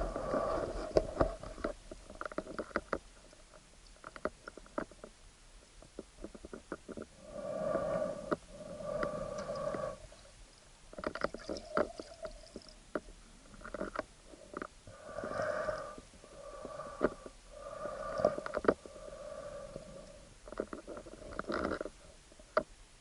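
Muffled underwater sound picked up through a waterproof action-camera housing: a pitched drone that comes and goes in stretches of a second or two, with scattered sharp clicks and knocks in between.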